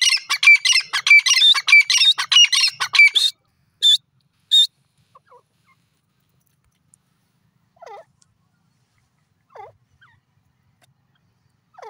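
Grey francolin calling: a loud, fast run of repeated shrill notes for about three seconds, then two single notes. After that come only a few faint, short, lower calls.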